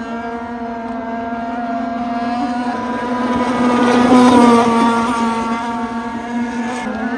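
Gasoline-engined RC power boat running at speed on the water, a steady high engine note that swells as the boat comes closest about four seconds in, then eases off.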